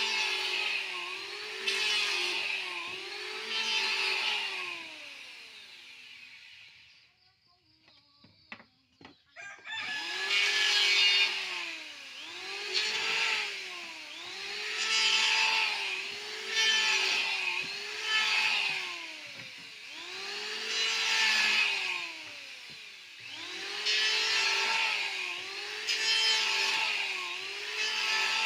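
Electric hand planer shaving wood, pass after pass, its motor pitch dipping and recovering about every one and a half to two seconds as the blades bite and come free. It stops for a few seconds about a quarter of the way in, with a few clicks, then runs on in the same rhythm.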